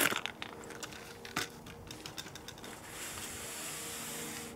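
Scattered light clicks and knocks of hands and a spray bottle working on the liftgate, then a steady faint hiss from about three seconds in.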